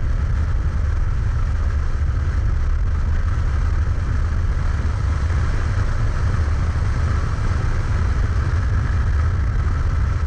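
BMW E46 driven at speed on a race track, heard from a camera mounted outside the car: steady engine and road noise under a heavy, constant wind rumble on the microphone.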